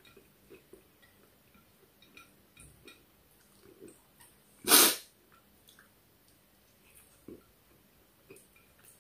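A person eating with her fingers, with faint chewing and small mouth clicks throughout. About halfway through comes one loud, short burst of breath from the nose or mouth, much louder than the eating sounds.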